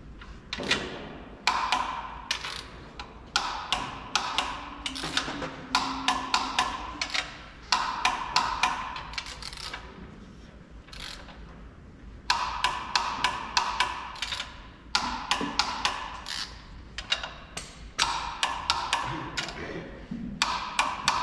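Ratchet wrench clicking in quick runs of one to three seconds with short pauses between, as the main bearing cap bolts on a Volvo D13 engine block are run down snug before torquing.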